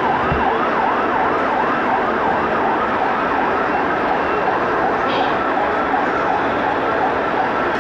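Electronic yelp siren from an RC model fire-rescue truck's sound module, rising and falling quickly, about three sweeps a second, and fading out near the end, over a steady background din.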